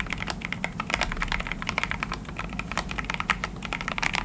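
Rapid typing on an Akko MOD004 tray-mount mechanical keyboard with lubed, spring-swapped Akko Pink Jelly switches and low-profile PBT keycaps: a steady stream of key clacks.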